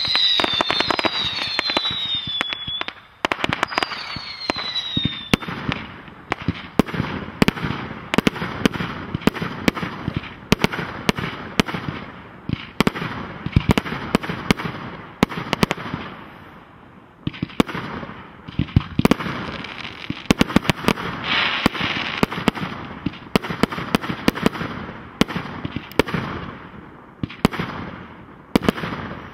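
Fireworks display: a dense barrage of launches and aerial bursts, a rapid run of bangs and pops. Several whistles falling in pitch sound over the bangs in the first five seconds.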